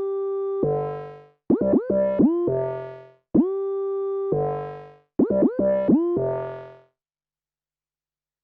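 MS-20-style analog synthesizer playing a short phrase: sustained notes that scoop upward in pitch at each attack, each answered by a lower, buzzier note that fades away. The phrase plays twice and stops about seven seconds in.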